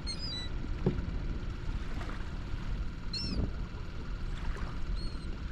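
Seagulls giving a few short, high calls, one near the start, one about three seconds in and one near the end, over a steady low rumble.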